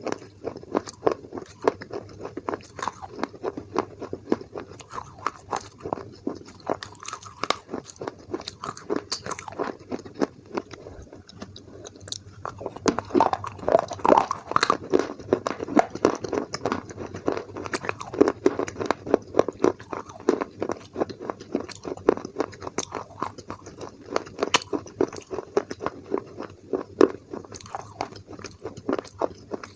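Close-up crunching and chewing of a mini baked clay pot coated in white paste, a dense run of irregular crisp crunches. The crunches thin out briefly about ten seconds in, then come back thicker and louder.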